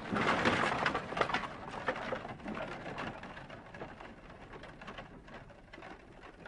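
Horse-drawn cart loaded with hay rolling across a grassy field: rustling with scattered clicks and knocks, loudest in the first two seconds and then fading away.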